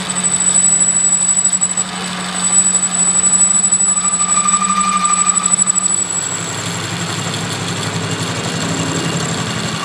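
Metal lathe turning a steel truck axle shaft, the cutting tool taking a cut across the welded repair and throwing off curling chips. A steady low hum comes from the lathe's drive, with a thin high whine. The level pulses rapidly for the first six seconds, then runs steadier.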